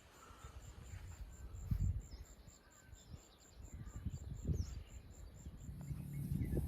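Insect chirping outdoors: a high, evenly repeated pulse about four or five times a second that stops near the end. Low thumps come twice, and a low steady hum starts near the end.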